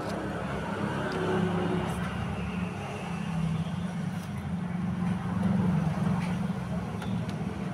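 Motor vehicle engine running close by, a low steady hum that swells about a second and a half in and again around five to six seconds, with a few faint clicks.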